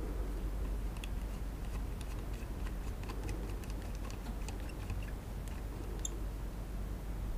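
Small precision screwdriver backing screws out of a DJI Mavic Air remote controller's case: faint, irregular light clicks and ticks over a steady low hum.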